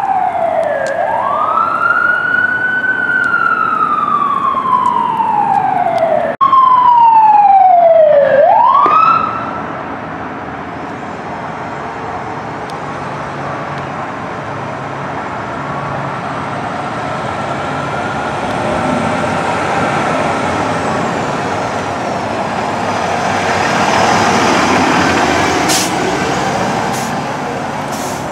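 Fire engine siren wailing, each cycle a quick rise in pitch and a slow fall. The siren cuts off about nine seconds in. After that the vehicle engine and road traffic run steadily, with two brief sharp sounds near the end.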